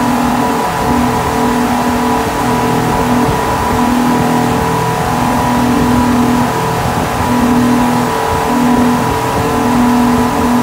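Twin Tohatsu 250 V6 four-stroke outboards running under way at speed: a steady engine drone with one tone that keeps fading in and out, over the rush of water from the wake.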